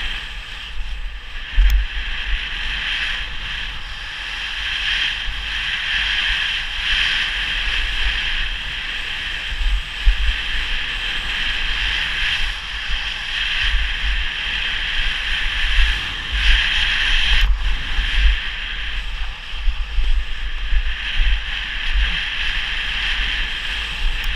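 Wind rushing over the microphone of a skier's action camera and skis hissing through powder snow on a descent, with irregular low buffeting thumps throughout.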